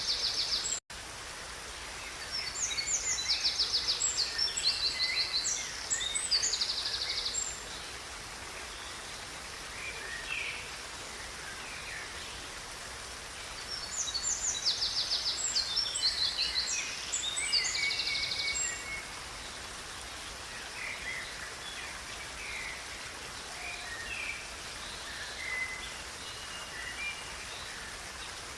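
Songbirds singing over the steady rush of river water. Two long bouts of bright, repeated trilled phrases, about three seconds in and again about fourteen seconds in, with scattered chirps between; the sound drops out for a split second about a second in.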